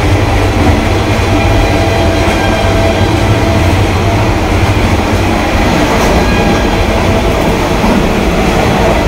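Vande Bharat Express electric train running at speed, heard from inside a coach toilet: a loud, steady low rumble with a few faint steady tones above it.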